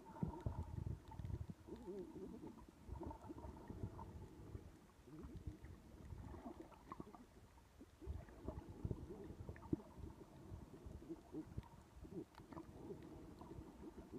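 Muffled underwater sound from a camera held below the surface: low, irregular rumbling and soft knocks of water moving against the camera.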